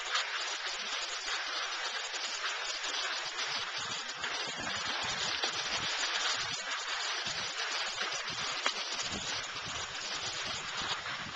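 Skis sliding over soft, slow spring snow, a steady hiss, with wind buffeting the microphone in irregular low rumbles from about a third of the way in.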